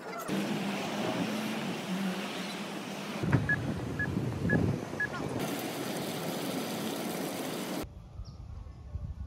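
Steady street noise, with a pedestrian crossing push-button signal giving four short high beeps about two a second in the middle. Near the end the noise drops abruptly to a quieter, low outdoor rumble.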